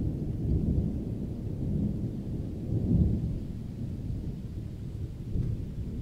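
Thunder rolling: a low rumble that swells and fades, loudest about three seconds in.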